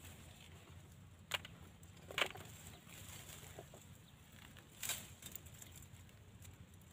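Machete cutting a leafy shrub: a few sharp snaps and rustles of stems and leaves, about three louder ones spread over the seconds, against a quiet background.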